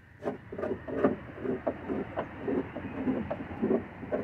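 Irregular scraping and knocking strokes, a couple a second, as droppings and bedding are scraped out of a wooden chicken coop's perches and nesting box.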